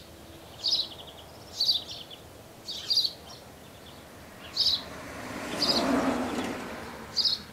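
A bird chirping repeatedly, short high chirps about once a second, over a steady outdoor background hiss. About five seconds in, a rushing noise swells, peaks and fades away.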